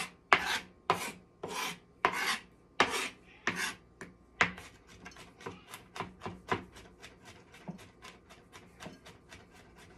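Kitchen knife chopping garlic on a cutting board. About eight hard chops come at a slow, even pace, then from about halfway in the chopping turns quicker and lighter, about four strokes a second.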